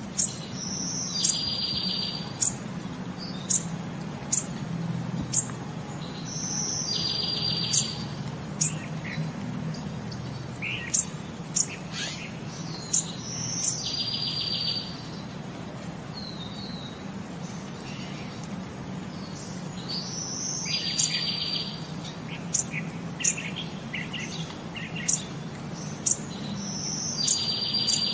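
Short high chirps repeating through, with a buzzy trill about a second long coming back every six or seven seconds in a regular looping pattern, over a low steady hum.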